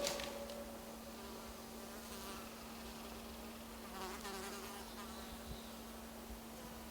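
Faint buzzing of a flying insect, swelling about two seconds in and again around four seconds, with a faint steady hum underneath.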